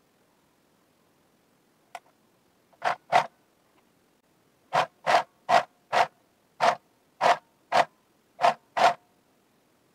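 Domestic sewing machine run in short bursts of a few stitches at a time while stitching picot elastic. A click comes first, then about eleven quick bursts, two close together and the rest packed into the second half.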